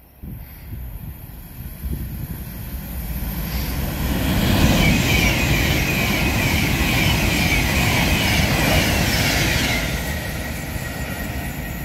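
Avanti West Coast Class 390 Pendolino electric train running through the station without stopping: its rumble builds from about two seconds in, and a rushing noise with a high hiss and whine is loudest for about six seconds as the carriages go by, then eases off near the end.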